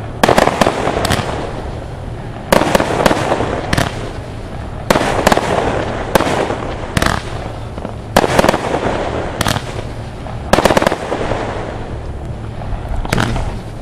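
Pyrotrade Taifun multi-shot firework firing shot after shot. There is a sharp report about every second or so, sometimes two in quick succession, and each one trails off in a fading hiss.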